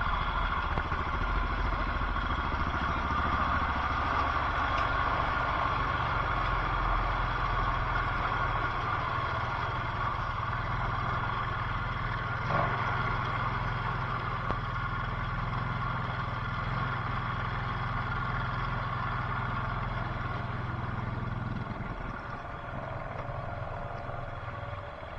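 ATV engine running steadily at low revs, with a single knock about halfway through; it fades to a lower level near the end.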